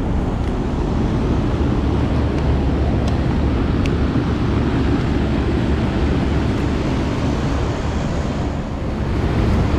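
Commercial air-conditioning unit running: a steady rush of fan noise over a constant low hum.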